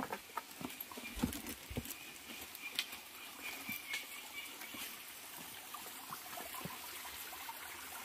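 Footsteps and scuffs on dry rocky ground: a run of sharp clicks and a couple of dull knocks in the first three seconds, then only a faint steady hiss.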